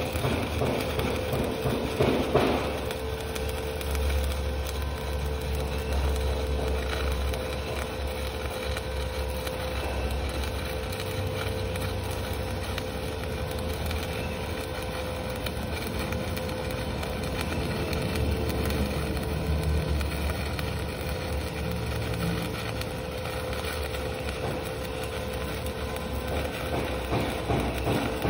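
Stick (SMAW) welding arc crackling steadily as a 2.6 mm LB-52-18 low-hydrogen electrode burns on a vertical 3G fill pass at about 100–120 amps. There is a louder pop about two seconds in.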